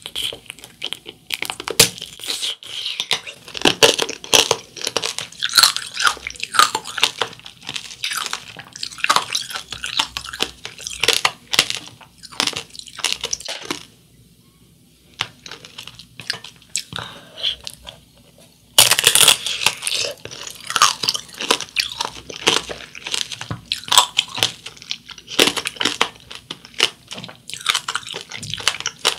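Close-up crunching and chewing of candied mandarin orange tanghulu: the hard, crispy sugar shell cracking between the teeth in rapid sharp crunches. It quietens for a few seconds about halfway through, then loud crunching starts again with a fresh bite.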